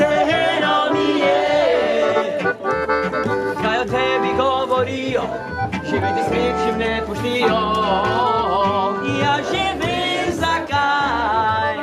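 Accordion-led folk-pop music with a singer, in the style of a Slovenian Oberkrainer band.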